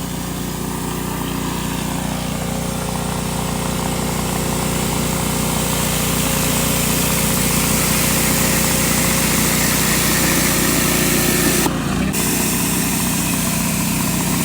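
Pressure washer's small engine running steadily under the hiss of water jets from a rotary surface cleaner on concrete. The sound grows slowly louder, with a brief change about twelve seconds in.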